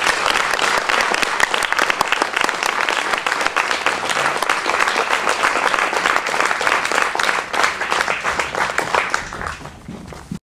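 Theatre audience applauding: many hands clapping in a dense, even spray that thins out near the end and then cuts off suddenly.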